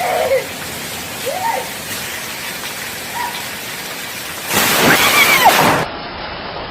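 Steady hiss of heavy rain, then a sudden loud crack of close thunder from a lightning strike about four and a half seconds in, which cuts off abruptly after about a second and a half.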